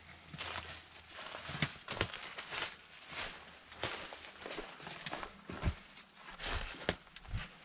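Footsteps on rough ground outdoors: irregular crunching and rustling steps with a few dull thumps in the second half.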